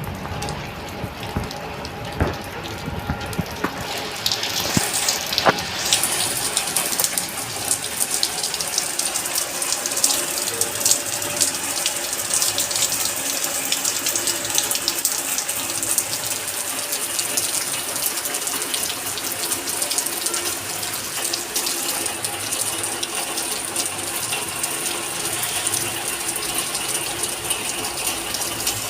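Rain falling steadily, with dense fast drops ticking and pattering on hard surfaces. The hiss of the rain grows fuller about four to six seconds in and then holds steady.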